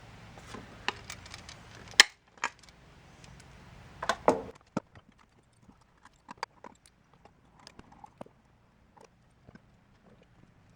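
Scattered metallic clicks, taps and clinks of hand tools and small parts as throttle linkage is taken apart on a marine carburettor, with a sharper knock about two seconds in and a cluster of clinks around four seconds.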